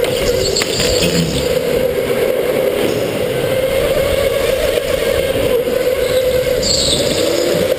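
Indoor go-kart's motor running at speed, heard from onboard as a steady whine that drifts slightly up in pitch, over rumbling wind and track noise. A brief high hiss comes near the end.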